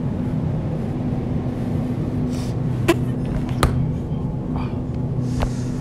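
A steady low hum made of a few held tones, with two sharp clicks near the middle.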